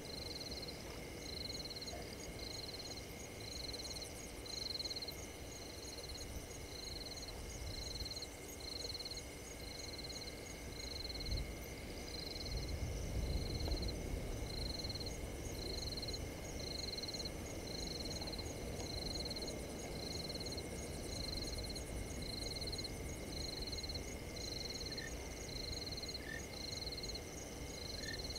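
Night chorus of frogs and insects: a high piping note repeats about once a second over a steady shrill trill and fast high ticking. About halfway through, a low rumble swells for a few seconds.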